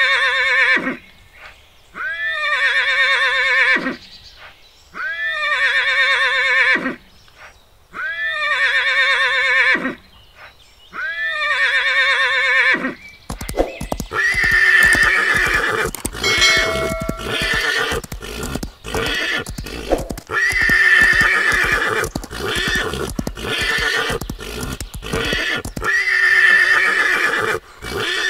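Horse whinnies: first the same falling neigh repeated about every three seconds, five times. From about halfway it turns into a dense run of whinnies and squeals from fighting stallions, over many sharp knocks of hooves.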